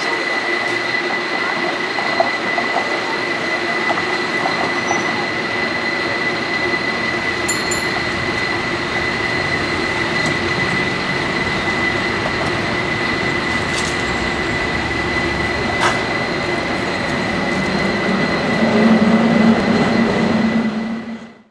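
Rail transit vehicle running, with a steady high-pitched whine over rumbling track noise. A low hum grows louder near the end before the sound cuts off abruptly.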